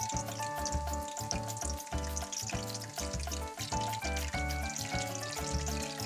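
Kakiage, a battered vegetable and shrimp fritter, sizzling as it deep-fries in oil, a dense steady crackle. Background music with a steady beat plays under it.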